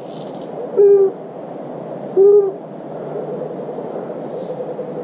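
Low, pitched hooting call repeated twice, about a second and a half apart, each hoot short and slightly arched in pitch, over a steady background hiss.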